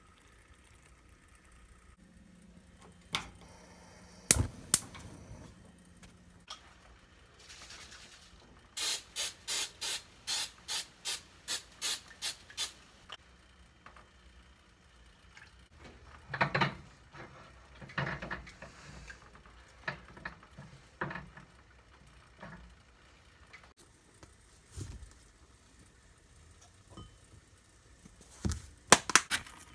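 Kitchen food-preparation handling sounds: a few sharp clicks and knocks of cups and containers, then a run of about a dozen short, even swishes at about three a second, followed by irregular rustling and a couple of sharp clicks near the end.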